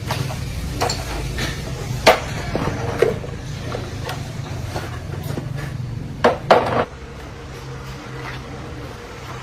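Sharp metallic knocks and clinks from tools or parts being handled, the loudest a close pair near the end, over a steady low engine hum that drops down right after them.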